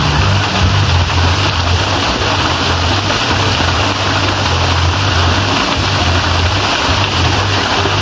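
Small waterfall pouring into a rocky plunge pool: a steady, loud rush of falling water with a low, uneven rumble underneath.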